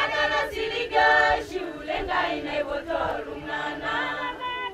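A choir singing, several voices holding and sliding between notes together.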